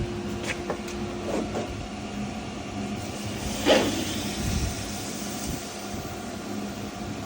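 A hot steel knife blade being quenched: one sudden loud hissing rush nearly four seconds in that fades over about a second, over a steady machine hum.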